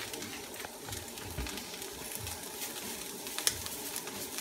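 Cabbage sautéing in sesame oil in a pot, a steady low sizzle with a few scattered clicks of a utensil against the pot, the sharpest about three and a half seconds in.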